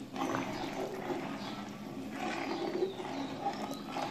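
Rice, beef and hot water being stirred with a spoon in an aluminium pot, the liquid sloshing.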